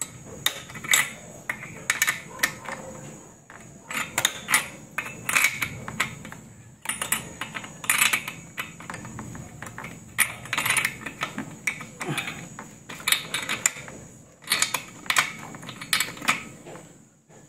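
Spark plug socket wrench and its metal tommy bar clinking and tapping as a spark plug is turned back into a grass cutter engine's cylinder head. Many short, irregular metal clicks, a few at a time.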